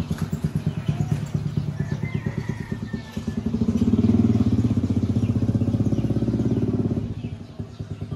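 Small motorcycle-type engine running with a steady pulsing beat, louder for about three seconds in the middle before dropping back.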